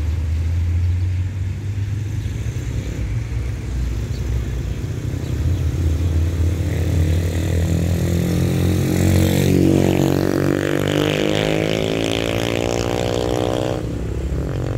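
A motor vehicle's engine runs low and steady. From about eight seconds a vehicle drives past close by, its engine and tyre noise swelling and then fading near the end.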